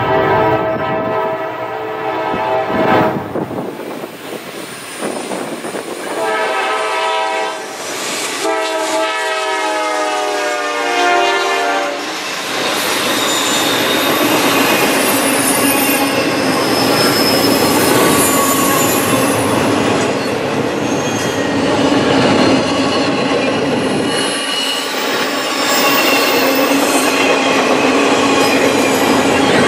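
GE Dash 9-40CW diesel locomotive's horn blowing three blasts as it approaches, the last the longest. From about twelve seconds in, the double-stack intermodal train's cars roll past in a loud steady rush, with high wheel squeal and rail clatter.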